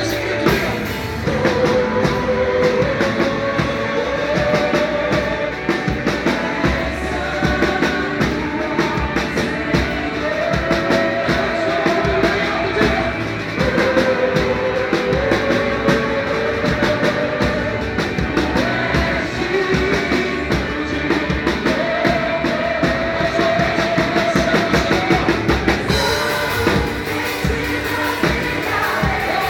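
Live worship band music: a drum kit keeps a steady beat under a sung melody with held notes.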